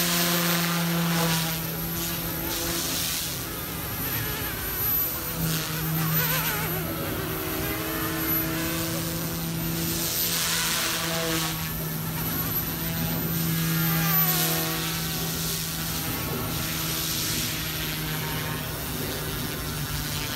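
OMPHOBBY M2 electric RC helicopter in flight: a steady motor-and-rotor whine with higher tones that slide up and down in pitch, and repeated rushes of rotor-blade noise that swell and fade as it manoeuvres.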